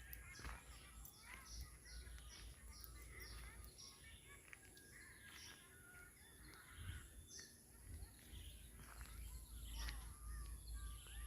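Faint birdsong: several small birds chirping, with a run of quick, evenly repeated falling notes, about three a second, in the first few seconds, over a low rumble.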